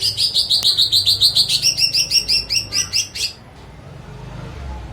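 Pet songbird singing a fast, even run of high chirps, about seven a second, for a little over three seconds before stopping.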